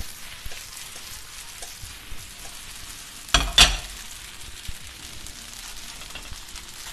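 Gnocchi frying in hot oil in a nonstick pan, a steady sizzle. About three and a half seconds in comes a short, loud double clatter as the pan is handled, and near the end a spatula stirs through the gnocchi.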